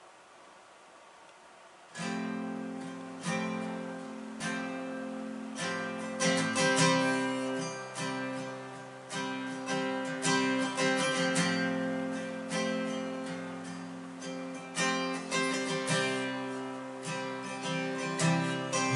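Acoustic guitar playing strummed chords as a song's instrumental introduction. It starts about two seconds in, after near silence.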